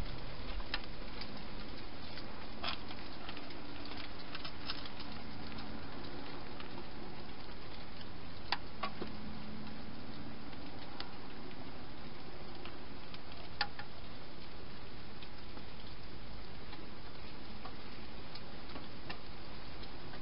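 Wild hedgehog eating dry food inside a plastic feeding box: scattered sharp clicks and ticks of crunching and of food against the dish, thicker in the first few seconds, over a steady background hiss.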